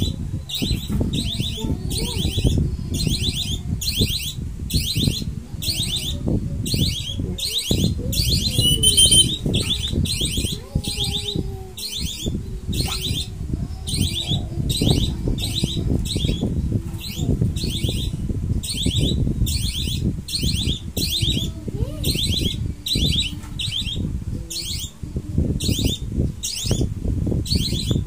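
A whistle held in the mouth sounding short trilled chirps, evenly repeated about twice a second, over rustling and handling noise from hand-feeding a dove chick.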